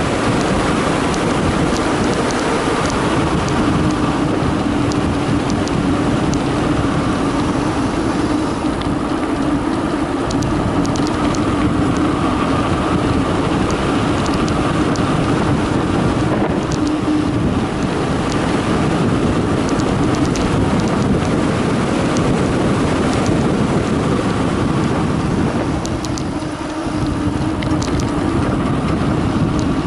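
Wind rushing over the camera microphone and a Carraro Big 827 mountain bike's tyres humming steadily on a concrete road during a fast downhill run, with small rattles and ticks from bumps in the surface.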